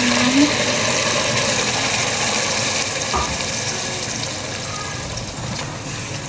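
Chicken pieces and wet green masala paste sizzling in hot oil and fried onions in a stainless steel pressure cooker. The sizzle eases off gradually as the added food cools the oil.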